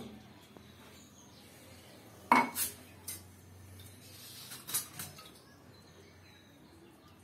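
Sparse clinks and knocks of hard objects being handled, like dishes or utensils. The loudest comes about two seconds in, with a few more over the next three seconds.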